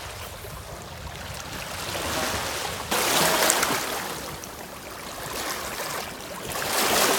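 River water washing and splashing over rocks in the shallows around wading feet, swelling and easing in surges. It gets suddenly louder about three seconds in, with another surge near the end.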